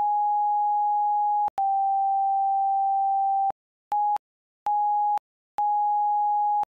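A steady, pure electronic bleep tone in irregular on-off stretches with dead silence between: two long stretches of about two seconds, then three shorter ones. It is a censor bleep laid over the soundtrack in place of the cabin audio, following an expletive.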